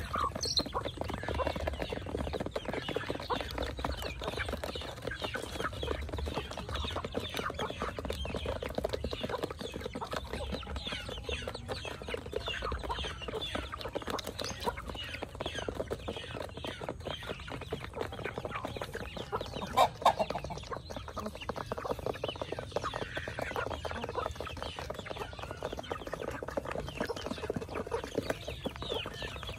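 A flock of chickens clucking while they feed, over a steady clatter of many quick pecks. One louder call stands out about two-thirds of the way through.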